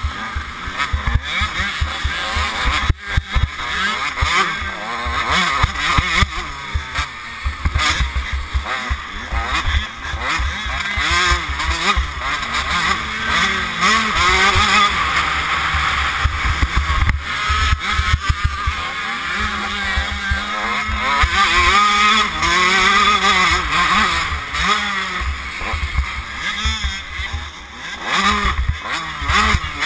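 Motocross bike engine revving up and down again and again through the gears at racing speed, heard from a helmet-mounted camera with heavy wind buffeting on the microphone.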